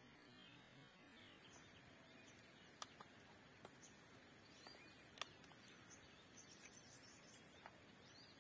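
Near silence: faint outdoor ambience with sparse bird chirps and a thin steady high whine, broken by two sharp clicks, about three and five seconds in.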